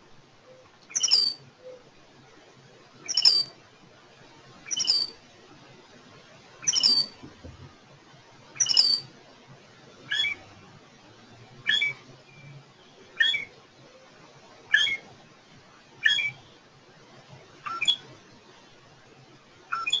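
Loggerhead shrike song from a recording: short, high calls repeated about every one and a half to two seconds. The first five are one falling note type, and from about halfway through the bird switches to a different, two- or three-pitched note, repeating each type several times before changing.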